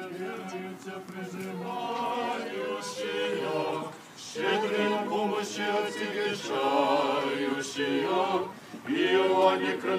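A group of voices singing an unaccompanied Orthodox liturgical chant as a procession hymn. The singing dips briefly about four seconds in, then comes back louder.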